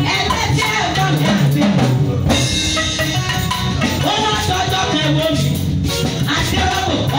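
Live gospel praise music: a woman singing lead through a microphone, with other singers joining and a band playing along.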